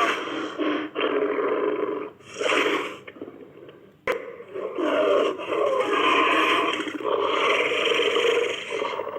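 Designed Gorgosaurus (dinosaur) roar sound effects: three short roars in the first three seconds, then after a brief pause one long drawn-out roar of about five seconds.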